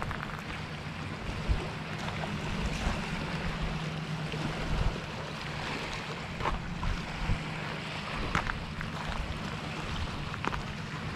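Small waves lapping and splashing against the rocks at the water's edge, with short splashes now and then over a steady wash of wind and water. A constant low hum runs underneath.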